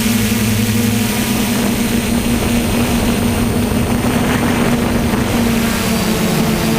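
DJI F450 quadcopter's propellers and motors humming steadily in flight, heard from the onboard GoPro with wind rushing over the microphone. Around six seconds in, the pitch of the hum splits and shifts as the motors change speed.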